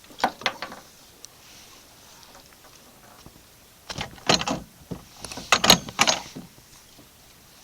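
Sharp knocks and rattles from handling gear: a short cluster just after the start, then a longer, louder run of knocks midway.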